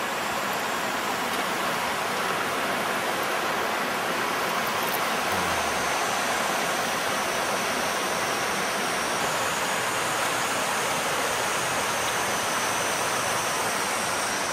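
Shallow river flowing over rocks and stones: a steady rush of water.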